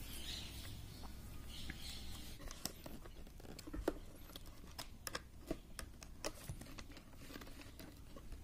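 Faint scattered clicks and rustles of hand work on a wooden switch board: insulated wires being twisted together, then a screwdriver working a wire under the 5-pin socket's terminal screw.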